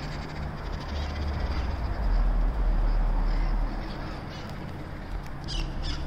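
A flock of parrots squawking with harsh calls, scattered through and bunched into a loud burst near the end, over a steady low rumble.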